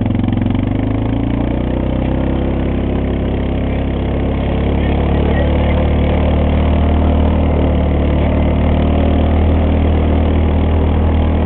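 Four-wheeler engine running steadily as it tows riders, its note shifting about a second in and growing a little louder about halfway through.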